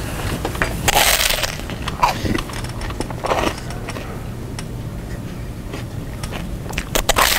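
Crunchy snack being chewed and crunched loudly close to the microphone: a run of irregular crunches, heaviest about a second in and again near the end.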